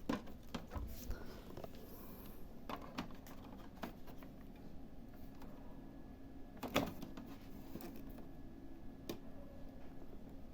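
Scattered light clicks and knocks from a printer being handled, its covers and parts moved, with one louder knock about two-thirds of the way through, over a faint steady hum.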